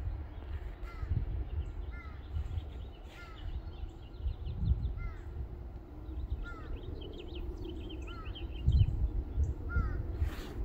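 A bird calls over and over, one short call every second or two, and a quick run of higher chirps comes in the middle. Under it runs a low, gusty rumble that swells loudest near the end.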